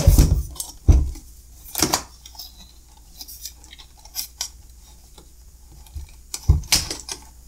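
Hard plastic knocks and clatter from a UPS front-panel bezel being handled against the unit's casing: a few sharp knocks at the start, one about a second in, another near two seconds, and a short cluster around six and a half seconds.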